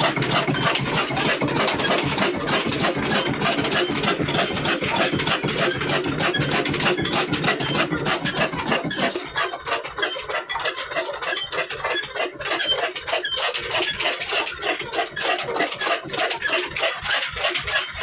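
Old diesel oil engine with a large flywheel running steadily on its belt drive, its firing making a fast, even beat. About halfway in the deeper part of the sound drops away while the beat goes on.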